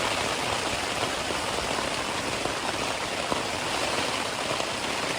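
Very heavy rain falling on a tarp tent, a steady dense hiss of drops on the fabric.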